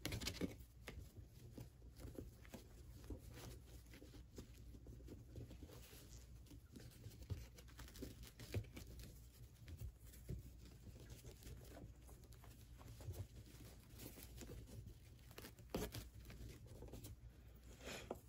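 Faint rustling and crinkling of a fabric ribbon as it is handled and tied into a bow, with scattered light ticks.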